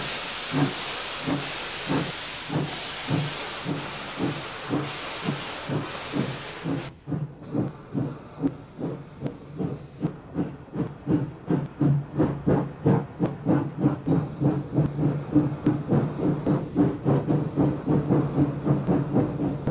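Steam locomotive pulling away, its exhaust beats quickening from about one and a half a second to about four a second as it gathers speed. A loud hiss of escaping steam runs with the first beats and cuts off suddenly about seven seconds in.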